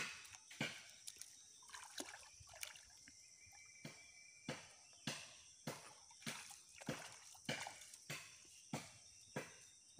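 Footsteps in an even rhythm, about three every two seconds, with water sloshing and dripping as someone wades in a shallow pond. A faint steady high hiss runs underneath.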